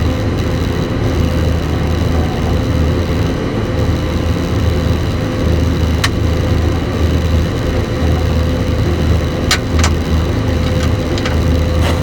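John Deere 9570 combine running steadily while harvesting soybeans, heard from inside the cab: a deep engine drone with a steady higher whine over it. A few sharp clicks come through, one about halfway and several near the end.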